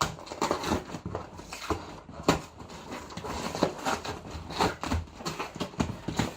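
Cardboard box and its packing rustling and crackling as it is pulled open by hand: a busy, irregular run of sharp crinkles, scrapes and taps.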